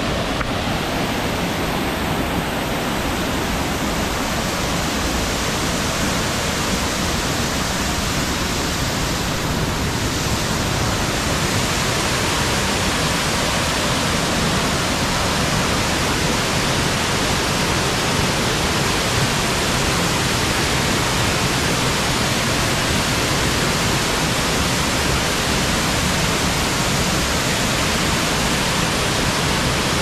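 Waterfall in heavy flow, a loud steady rush of water cascading down stepped rock ledges into the pool below.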